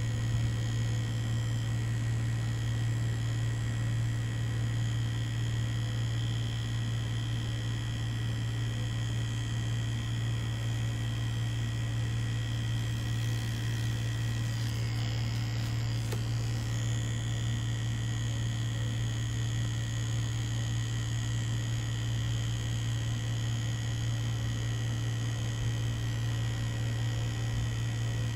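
Mummy Anubis tattoo machine buzzing steadily with an even, unbroken hum, with a brief faint rustle about halfway through.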